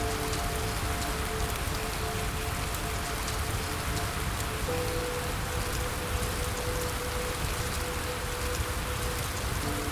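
Steady rain falling, with a few soft, slow, sustained music notes beneath it that change about five seconds in.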